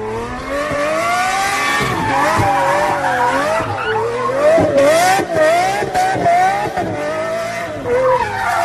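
A car engine revving up and down again and again, with its tyres skidding.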